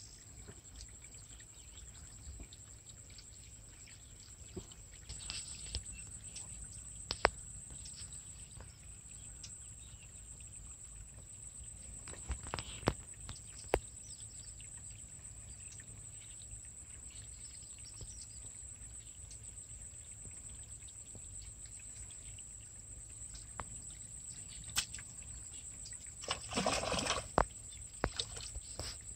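Outdoor field ambience: a steady high-pitched drone and a low rumble, with a few sharp clicks and a brief louder noise about 27 seconds in.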